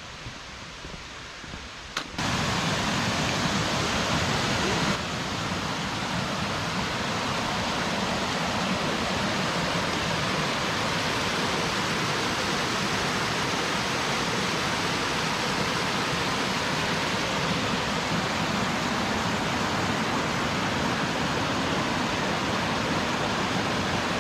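A small mountain stream and cascade rushing steadily over rocks, cutting in abruptly about two seconds in.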